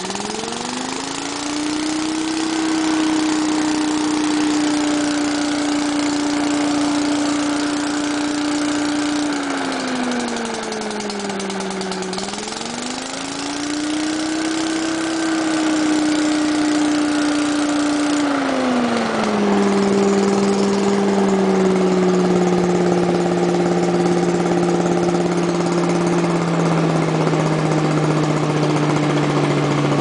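Walk-behind lawn mower engine running while it picks up fallen leaves into its cloth catcher bag. Its pitch rises over the first two seconds, dips and recovers about ten seconds in, then drops about eighteen seconds in and sinks slowly lower toward the end.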